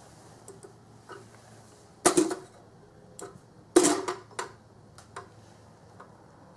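Hollow plastic clacks and rattles from a gold waving-cat figurine being batted by a kitten's paw on a tile floor: two clattering bursts about two and four seconds in, with a few light ticks between.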